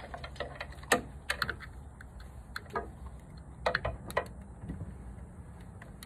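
Irregular sharp clicks and snaps of a hand wire stripper biting into and pulling insulation off wiring-harness wires, a handful of them between about one and four seconds in.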